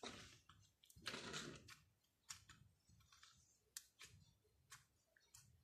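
Faint sticky clicks and crackles of homemade glitter slime, made from glue and kinetic sand, being squeezed in the hands and pressed flat with the fingertips, with a soft squelching rustle near the start and again about a second in.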